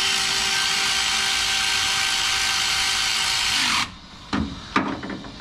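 Cordless power tool running in a bottom alternator mounting bolt: a steady whine that stops abruptly about four seconds in. Two light clicks follow.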